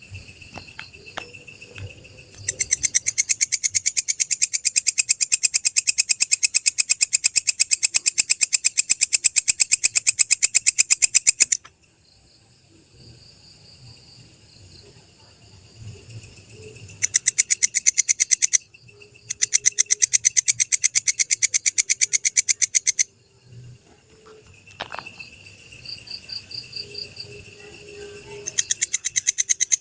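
Walang kecek katydid calling: long trills of very rapid, even clicking that run several seconds at a time with short pauses between. Fainter chirping sounds in the gaps.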